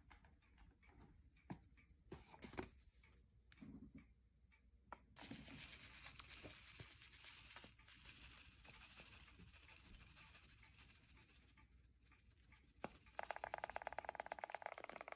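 Paper pouch of enzyme powder rustling as it is tilted over a tray of dog food to sprinkle the topping, after a few light clicks at the start. About two seconds before the end it turns into a louder, fast, even shaking rhythm as the pouch is shaken.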